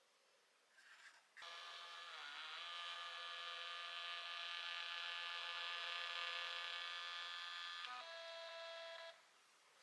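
Small thermal label printer printing a sticker: its paper-feed motor whines steadily for about eight seconds as the label is fed out, shifting to a lower tone near the end before stopping.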